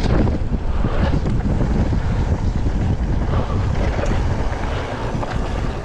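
Wind rushing over the microphone of a handlebar-mounted camera on a downhill mountain bike, with the tyres rolling over the dirt track and scattered small knocks from the bike; the noise eases a little near the end.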